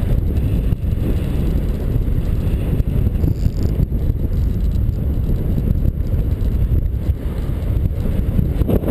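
Airflow buffeting the microphone of a camera carried by a paraglider in flight, making a steady, low rush of wind noise.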